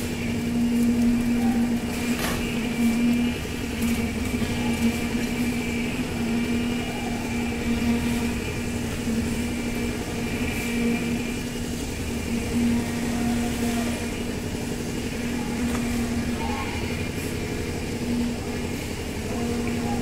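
An engine running steadily with an even drone, with an occasional sharp knock, such as one about two seconds in.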